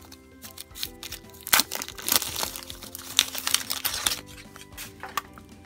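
Plastic wrapper crinkling as it is peeled off a small plastic toy food jar, in scattered crackles, over soft background music.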